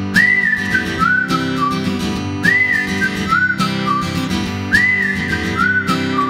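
Background music: a whistled tune repeating a short rising-and-falling phrase about every two and a half seconds over strummed acoustic guitar.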